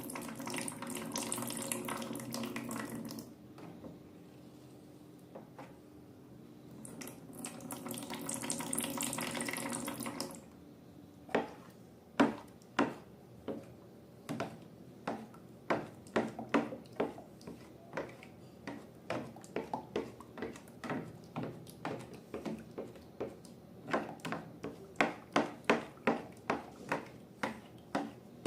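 Liquid pouring twice, a few seconds apart, followed by a long run of sharp, wet, sticky clicks about two a second, typical of slime being stirred and worked by hand.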